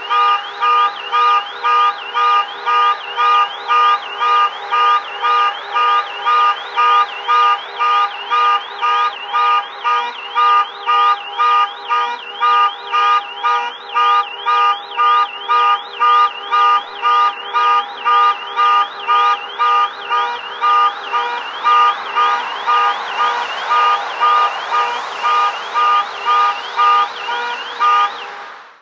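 Car alarm blaring: a loud electronic tone pulsing about twice a second, with a fast warble riding on top.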